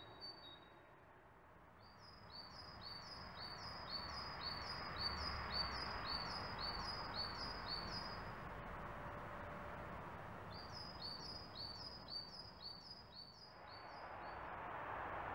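A small songbird singing runs of short, high two-pitched notes, about two a second, in two phrases with a pause of a couple of seconds between them, over a steady background hiss.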